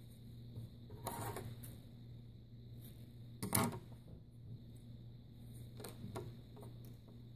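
Handling noise from yarn and wooden craft sticks: a short rustle about a second in, a louder brief scrape or knock about three and a half seconds in, and a few small clicks near the end, over a steady low electrical hum.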